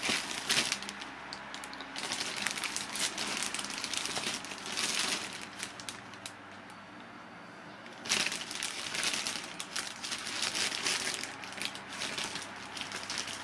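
Clear plastic bags crinkling and rustling as the model-aircraft parts inside them are handled, in irregular crackly bursts. About six seconds in it drops to a quieter lull of about two seconds, then the crinkling picks up again.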